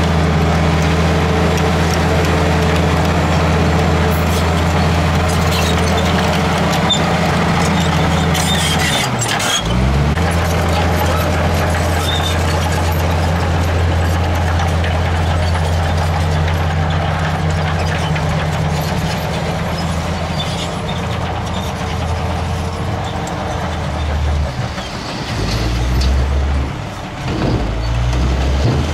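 Komatsu D65PX bulldozer's diesel engine running steadily under load as it pushes dirt. About ten seconds in the sound changes to a dump truck's diesel engine running as the truck raises its tipper bed, and in the last few seconds there is an uneven low rumble as the load of rocks and earth starts to slide out.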